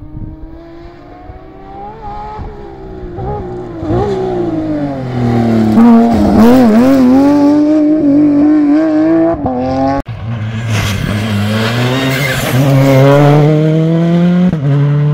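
Rally car engine at full throttle as the car climbs towards the listener. The pitch rises and drops back at each upshift, and it grows loud as the car nears. After a sudden cut, a second rally car's engine rises steadily as it approaches.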